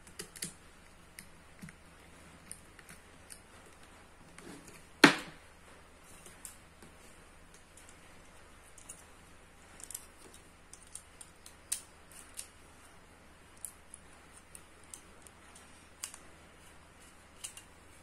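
Scattered small clicks and taps of a screwdriver and wires being worked into the terminals of contactors and an overload relay, with one sharp, louder knock about five seconds in.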